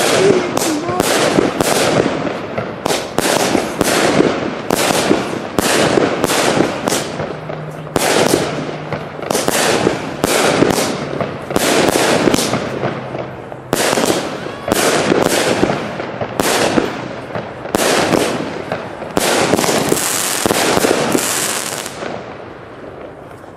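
Pyro Group Europe 'Cake G' 25-shot firework battery firing shot after shot, sharp bangs about one to two a second with crackling between them. A high hiss comes near the end, then the firing stops and the sound dies away.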